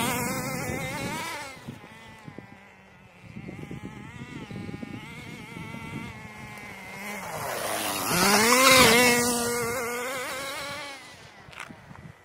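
Small two-stroke nitro glow engine of a 1/10 RC buggy buzzing and revving up and down as the buggy drives around. It is loud close by at the start, fainter in the middle, and loudest about eight seconds in as the buggy passes near, its pitch rising and then dropping away.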